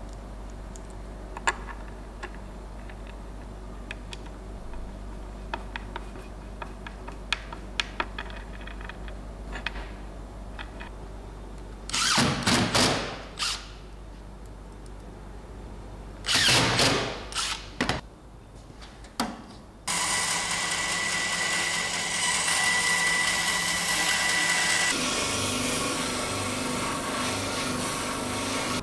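Light metal clicks from hinge hardware being handled, then two short runs of a cordless drill driving screws into the cabinet hinges. From about two-thirds of the way in, a benchtop spindle sander runs steadily with a high tone as a small oak piece is sanded against its drum.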